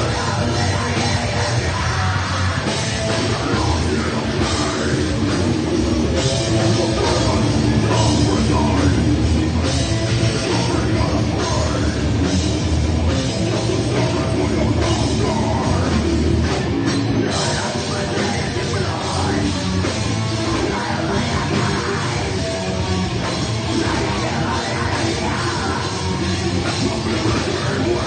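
A heavy metal band playing live, loud, with a drum kit pounding underneath.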